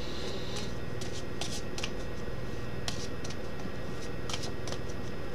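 Tarot cards being handled and shuffled: soft, irregular flicks and clicks over a steady low hum and hiss.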